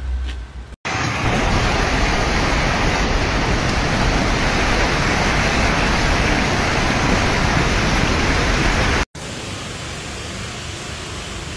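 Steady, dense noise of a severe storm, with heavy rain and wind. It starts abruptly about a second in and breaks off about nine seconds in to a quieter, steady hiss.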